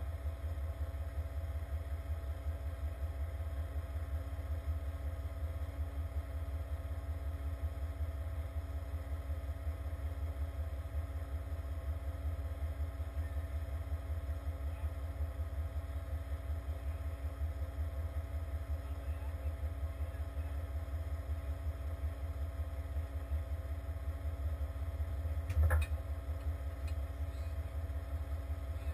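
Heavy truck's diesel engine idling steadily, a constant low rumble, with a single knock near the end.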